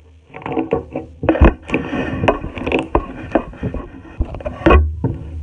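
Soft pink clicking slime being squeezed and poked by fingers, giving a fast, irregular run of loud clicks and crunchy crackles as the air pockets in it pop.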